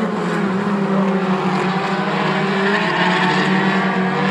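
A field of four-cylinder short-track race cars running at speed around the oval, several engines sounding at once with steady, overlapping pitches.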